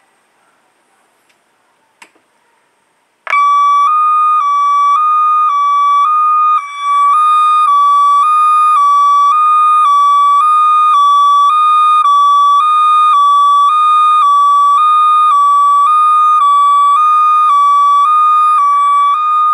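A custom 24 V electronic alarm sounder switches on about three seconds in. It gives a very loud, steady warning tone that warbles rapidly back and forth between two close pitches, measured at about 130 dB.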